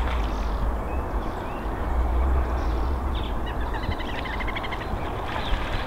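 Mute swan bathing, splashing water with its wings and body, over a steady low rumble.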